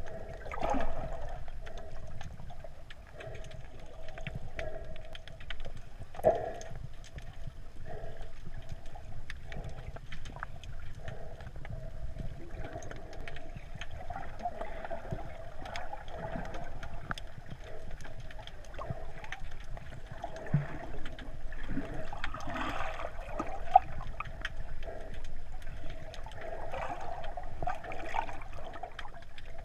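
Underwater sound picked up through a GoPro's waterproof housing: muffled, gurgling water movement with scattered small crackles and clicks and a few louder knocks.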